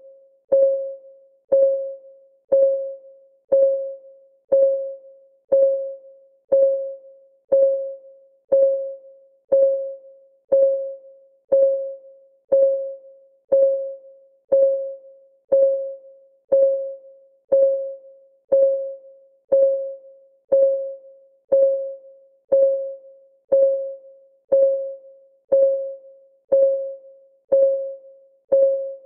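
Clock ticking sound effect of a countdown timer: a short, pitched tick about once a second, each one dying away quickly, at a perfectly steady pace.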